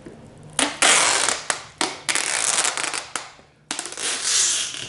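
Sellotape being pulled off the roll in several quick pulls and pressed around a box wrapped in cling film, the tape and plastic film crackling and rustling.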